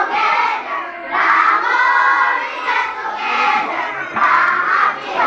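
A group of young scouts singing and shouting together, loud and continuous, with many voices at once.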